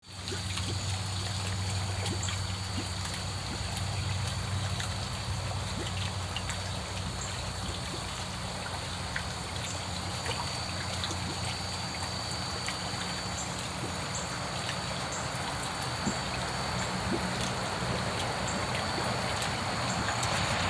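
Water trickling steadily in a koi fish tank or pond, over a low steady hum and a thin high tone, with scattered faint pops.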